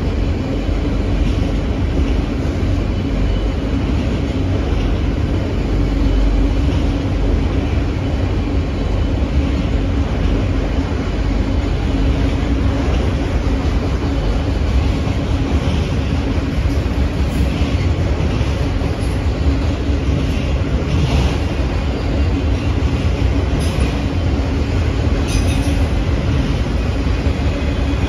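A long string of autorack freight cars rolling past, a steady rumble of steel wheels on the rails.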